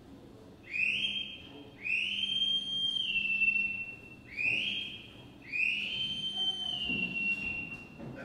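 A high-pitched whistle sounded in four notes, short, long, short, long, each swooping up as it starts; the two long notes step down in pitch near their ends.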